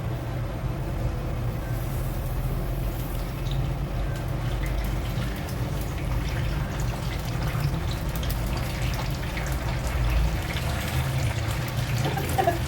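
Tap water running and splashing as dried fish is rinsed by hand to wash off excess salt.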